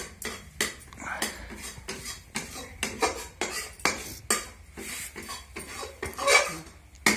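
Metal spoon or spatula stirring and scraping in a metal cooking pan, clinking against its sides in quick strokes, about three a second, with one louder clank about six seconds in.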